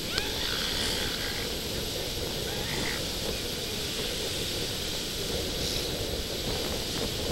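Steady wind and surf noise at an elephant seal beach, with a few faint, short, high calls about a second in and again around three seconds in.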